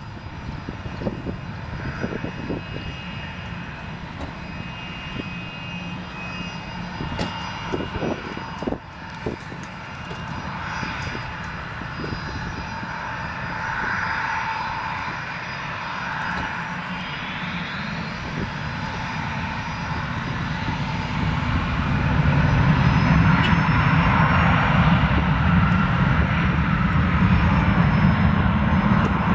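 Twin rear-mounted Rolls-Royce AE 3007 turbofans of an Embraer ERJ-145-family regional jet, running as it lines up on the runway. Past the middle a whine rises in pitch as the engines spool up, and the sound grows louder over the last third as they reach takeoff thrust for the takeoff roll.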